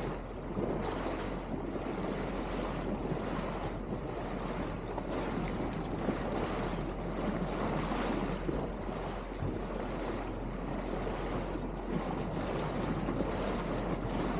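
Steady rush of water and wind as a small cabin boat runs at speed: wash along the hull and spray, with wind buffeting the microphone in slow gusts.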